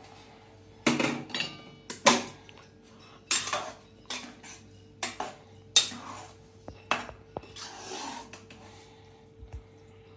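Metal ladle knocking and scraping against the inside of a pressure cooker pot as thick dal khichdi is stirred after water is added, with a steel pot clanking against the rim; about ten irregular clinks and knocks.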